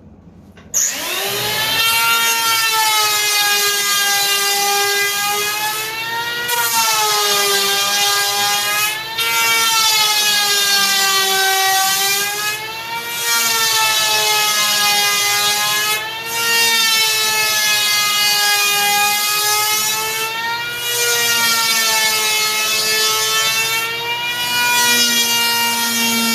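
Modified electric hand planer starting up under a second in, then running as it cuts the foam deck of a surfboard blank. Its motor pitch sags and recovers every three to four seconds as each pass loads and unloads the blade.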